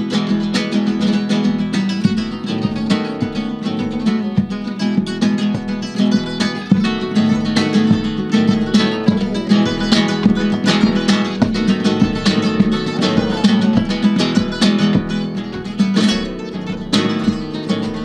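Two Spanish acoustic guitars playing a rumba instrumental passage together, with brisk rhythmic strumming over ringing chords.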